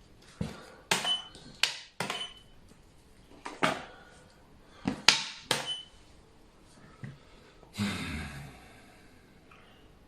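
Xiangqi pieces clacked down onto the board, about seven sharp knocks in uneven succession, some with a short ringing ping, then a brief scraping rustle near the end.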